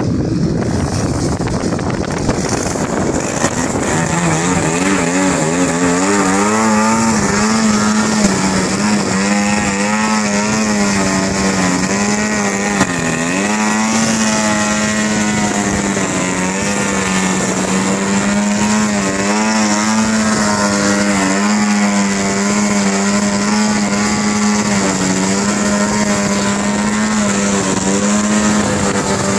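Radio-controlled Yak 54 aerobatic model plane hanging nose-up on its propeller, its engine and propeller giving a steady drone. The drone becomes a clear tone about four seconds in, rising a little in pitch, then holds with small wavers and brief dips as the throttle is worked to keep the hover.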